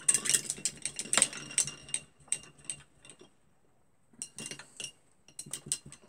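Paintbrush being rinsed in a glass jar of water, its handle clinking and rattling against the glass in quick runs of taps, with a pause of about a second midway.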